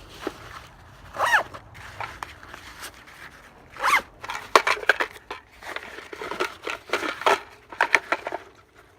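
Hands handling the disassembled pistol parts and its soft carry bag: scattered clicks, rustling and quick zipper-like sweeps, the loudest about a second and four seconds in.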